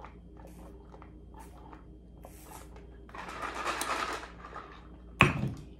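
Small gulping and sipping sounds from drinking out of a plastic tumbler, then a rattle of about a second as the tumbler is tipped and shaken. Near the end comes one loud, short burp.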